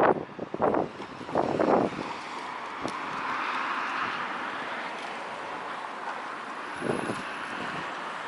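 Strong wind buffeting the microphone in several loud gusts during the first two seconds and once more near the end, over a steady rushing hiss that swells and then eases.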